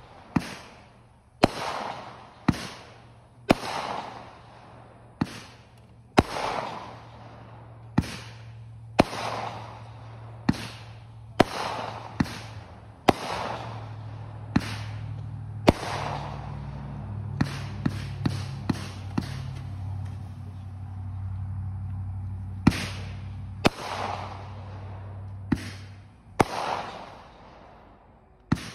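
Consumer aerial fireworks firing in sequence: sharp bangs about once a second or so, each trailing off in a crackling fade, with a quick string of pops about two-thirds of the way through. A low steady hum runs underneath through the middle.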